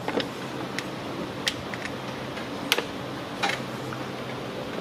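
Light metallic clicks, about five spread out, as a screwdriver tip pries and catches at a single-use toothed band clamp on a radiator hose, over a steady low hum.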